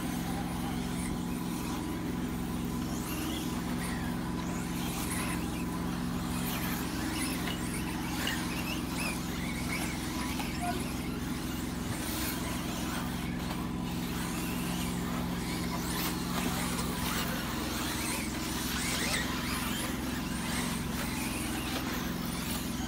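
Radio-controlled 4WD race cars running laps on a track: scattered brief whines and tyre scrabbles come and go over a steady low hum.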